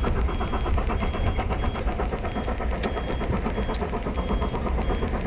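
Suzuki Jimny driving slowly, its engine and road noise heard as a steady low rumble from inside the cabin. A faint high-pitched beep repeats about every half second.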